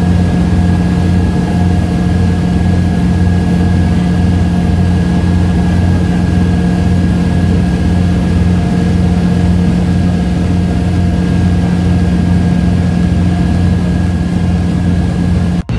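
Pasig River ferry's engine running steadily under way, a loud low drone with a regular throb, heard from inside the passenger cabin.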